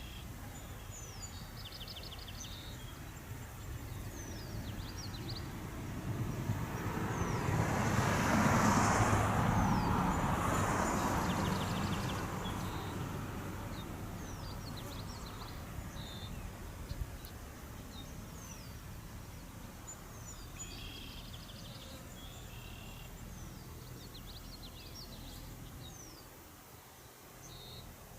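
A road vehicle passing, its noise swelling to a peak about eight seconds in and then fading away. Birds chirp throughout.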